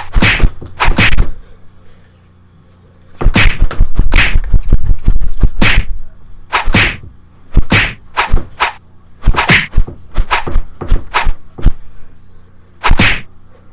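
Fight sound effects: a series of punch and whack hits, some in quick flurries and some spaced apart, with a short pause about two seconds in.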